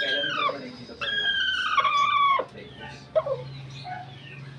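Two long, drawn-out animal calls, the second sliding down in pitch near its end and cutting off sharply; quieter scattered sounds follow.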